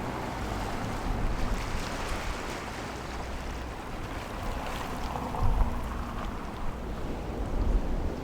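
Wind rushing over a microphone, with gusty low rumbles and a steady surf-like hiss.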